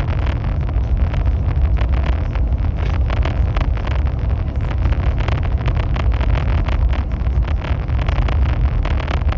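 High-speed train running at speed: a steady low rumble with frequent small irregular rattles and ticks.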